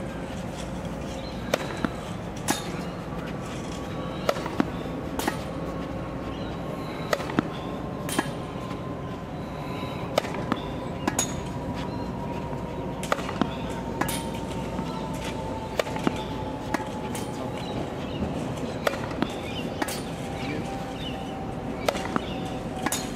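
Tennis racket strokes, with balls bouncing on the court, during a groundstroke rally: a string of sharp pops, often in close pairs, every second or so.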